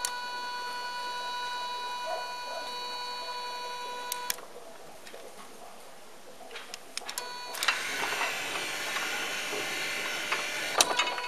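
Homemade H-bridge controller driving a sliding gate's electric motor: a steady high electric whine with clicks where it switches on and off, for about four seconds. After a pause the whine returns, and then the gate's motor and rack drive run with a loud rattling mechanical noise for about three seconds near the end.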